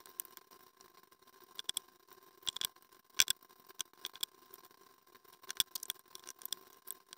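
Scattered clicks and light knocks of rigid 3D-printed plastic fender parts being handled and fitted together on a wooden workbench, at irregular intervals and loudest about three seconds in, over a faint steady hum.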